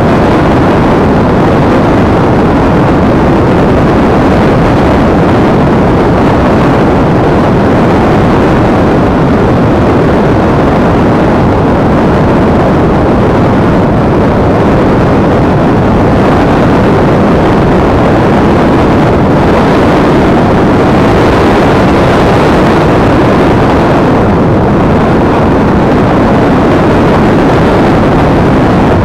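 Loud, steady rush of wind and flight noise picked up by an action camera riding on an EasyStar RC model plane in flight, an even noise with no distinct motor whine or changes.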